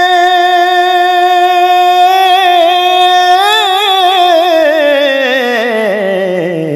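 Unaccompanied voice singing in the Heer recitation style: one long high note held steady, then about three seconds in it breaks into wavering ornamented turns that slide down to a low note and trail off.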